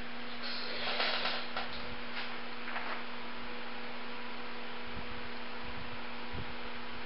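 Steady electrical mains-type hum over background hiss, with faint brief rustles of handling about a second in and again near three seconds.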